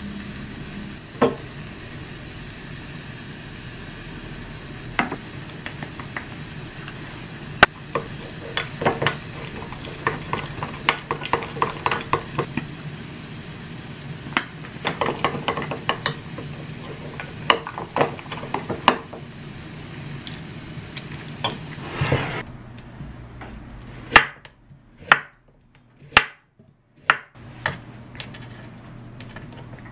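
Metal spoon clinking and scraping against a glass bowl in quick runs while stirring a thick gochujang sauce, over a steady low hum. Near the end, a kitchen knife chopping carrot on a wooden cutting board: a few sharp, separate strikes.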